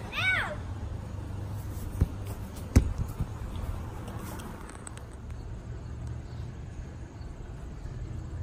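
A child's brief high-pitched cry, rising then falling, then two sharp thumps about two and three seconds in, over a steady low rumble of outdoor background noise.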